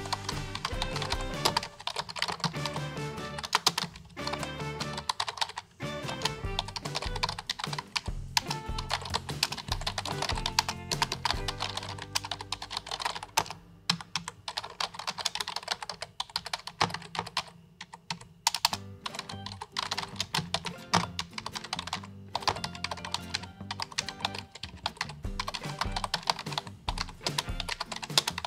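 Fast, irregular typing on a computer keyboard, keys clicking in quick runs with short pauses, over background music with a repeating bass line.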